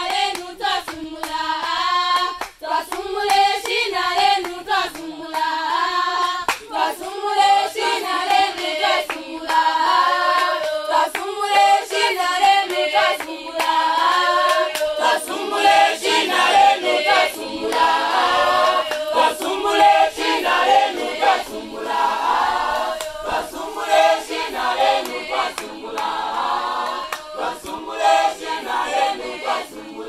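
A group of students singing together unaccompanied, with hand claps keeping time.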